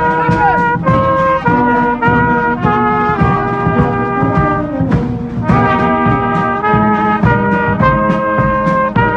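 Marching brass band playing a tune in the street: trombones and other brass hold notes over a steady bass drum beat, with a short break in the melody about five seconds in.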